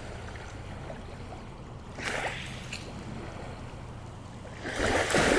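Small lake waves lapping at the shore right at the water's edge, washing in twice: softly about two seconds in and louder near the end.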